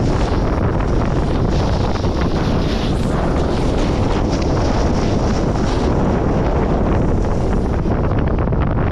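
Wind buffeting the camera microphone as a snowboard runs down a groomed slope. A hiss of the board's edge scraping the snow swells and fades with the turns.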